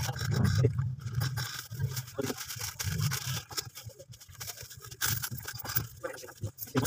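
Plastic shopping bags rustling and crinkling as goods are handled and packed at a store counter, with irregular clicks and scrapes.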